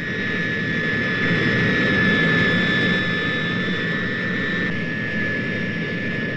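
Jet aircraft taking off: a steady roar of jet engines with a high whine. The whine drops away about three-quarters of the way through and the roar eases slightly as the plane climbs away.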